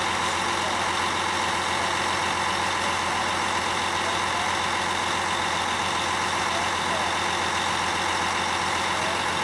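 Pump truck's 600 HP John Deere diesel engine running at a steady speed, driving the hydrostatic hydraulic system as the boom lowers the pit pump. A steady mechanical hum with an even, unchanging level throughout.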